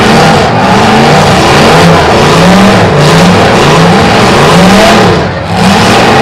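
Demolition derby cars' engines revving hard, several at once, their pitch rising and falling again and again, with a brief drop in loudness about five seconds in.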